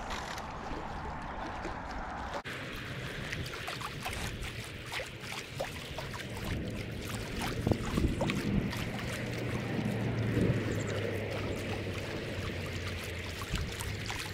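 Small waves lapping and splashing at the edge of a lake against a shallow, leaf-strewn shore, a steady wash broken by many short splashes and ticks, with a low rumble under it.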